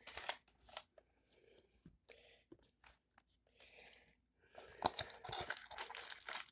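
Paper and plastic packaging rustling and crinkling as the parts of a deadbolt lock are taken out of their box, with small clicks. It comes in scattered bits, goes nearly quiet around the middle, then picks up again near the end.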